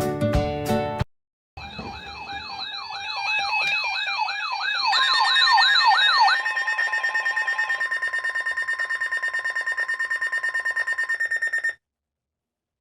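An electronic alarm: a fast warbling siren sweep, rising and falling about two to three times a second, changes about halfway through into a rapid pulsing beep on steady tones, then cuts off suddenly. Just before it, a strummed acoustic guitar piece cuts off about a second in.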